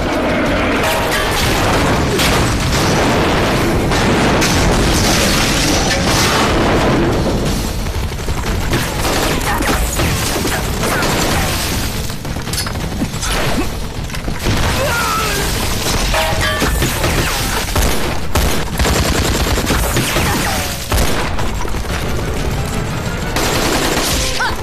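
Battle sound effects from a war drama: volleys of rifle fire and booming explosions, mixed with dramatic background music.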